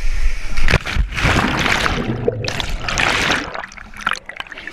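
Water splashing and rushing at a waterfall pool, in two loud surges of about a second each, dying down about three and a half seconds in.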